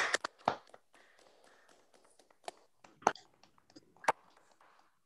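Hands clapping in applause: a run of irregular claps, strongest in the first half second and thinning out after about four seconds, heard over a Zoom video call.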